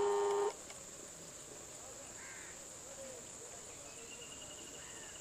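Steady high-pitched insect drone throughout, with a brief loud held tone for about half a second at the very start and a few faint bird chirps.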